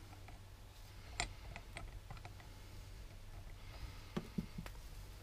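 Faint metal clicks and taps as a greased gear is seated into a Detroit TrueTrac differential case: one about a second in, a few more in quick succession past four seconds, over a low steady hum.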